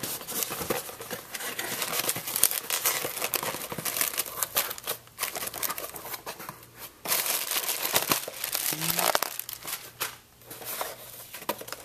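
A cardboard shipping box being opened by hand: flaps pulled apart with scraping and tearing, then a plastic bag crinkling as the packed item is lifted out. The rustling comes in uneven bursts and eases off briefly near the end.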